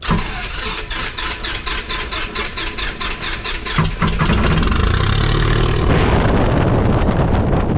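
A Cessna 172M's 180 hp piston engine being started: the starter cranks it in even beats about four a second, and about four seconds in it catches and settles into a steady run.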